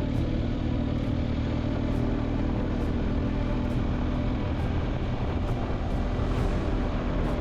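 Motorcycle engine running at a steady cruise under rushing wind and road noise.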